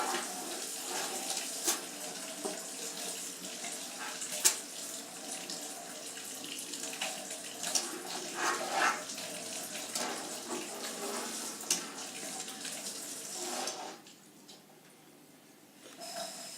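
Water running from a sink tap while hands are washed, with scattered small knocks; the water shuts off about fourteen seconds in.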